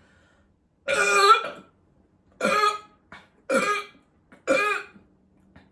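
A man burping four times in a row, each burp about half a second long and roughly a second apart.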